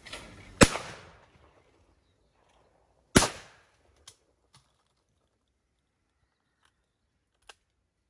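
Two shotgun shots at a pair of clays, about two and a half seconds apart, each dying away over a fraction of a second. A few light clicks follow.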